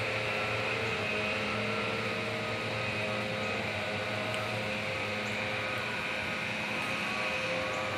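Steady outdoor background noise: an even hiss with a faint hum underneath and no distinct events.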